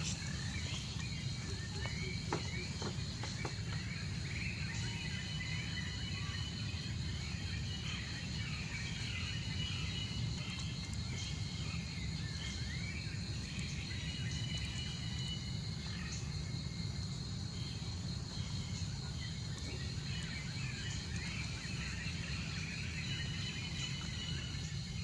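Outdoor ambience: a steady insect drone and scattered short chirps over a constant low rumble.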